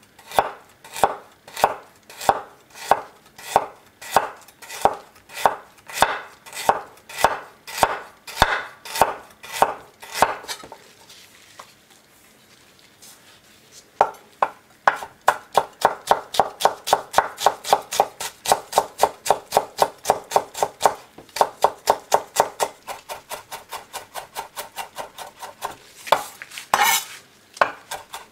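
Chef's knife cutting peeled ginger on an end-grain wooden cutting board: steady slicing strokes at about two a second, a pause of a few seconds, then fast mincing at about five strokes a second, with one louder knock near the end.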